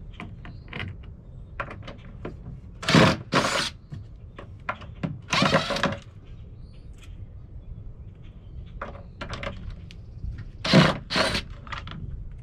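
Cordless power driver running in about five short bursts on the screws of a wooden cabinet door's hinge, with small knocks and clicks from handling the door and hardware between bursts.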